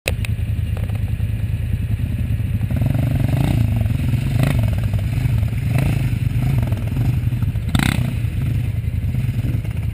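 Quad bike engine running, revving up from about three seconds in as it pulls off across the grass. There are a few short sharp knocks along the way.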